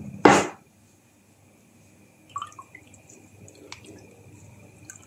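Lemon juice dripping into a saucepan of salted water as a lemon half is squeezed and worked with a fork, heard as scattered small drips and clicks in the second half. A short, loud rasp comes about a quarter second in.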